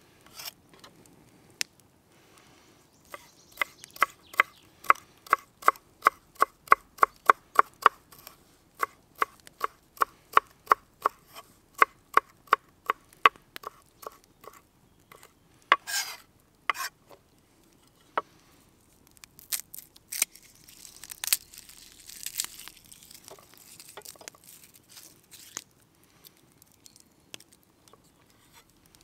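Chef's knife chopping herbs on a wooden cutting board: a steady run of knocks, about three a second, each with a short ring. Then a longer scrape, and looser tapping and rustling later on.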